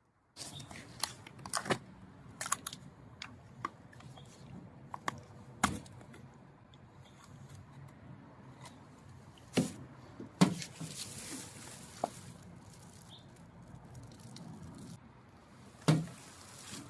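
Scattered clicks, taps and knocks from handling a small portable petrol generator and an oil bottle while engine oil is filled into the crankcase, with a short rustling stretch about ten seconds in.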